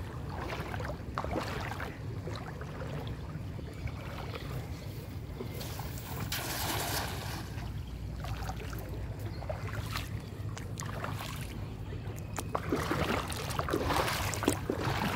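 Shallow floodwater sloshing and splashing as someone moves through it, over a steady low rumble of wind on the microphone. The splashing gets busier and louder near the end.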